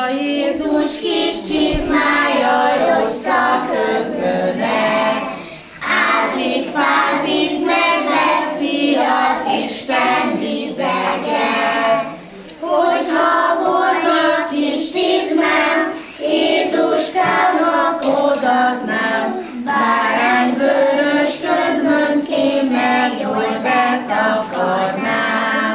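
A group of young kindergarten children singing a song together, in phrases broken by short pauses for breath.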